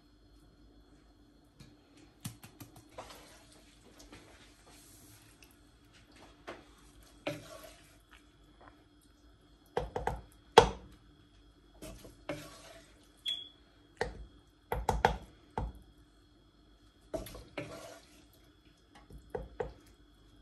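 Cooking utensils knocking and scraping against a pot in irregular clacks, louder and more frequent in the middle, with a few short stretches of splashy hiss like water or food being poured.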